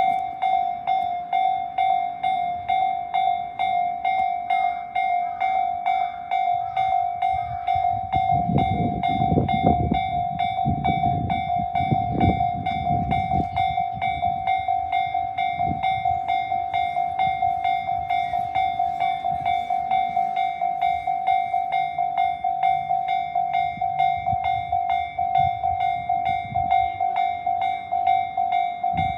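Japanese railroad crossing warning bells ringing in a rapid, even rhythm. A train passes over the crossing from about 8 to 14 seconds in, its wheels clattering over the rails.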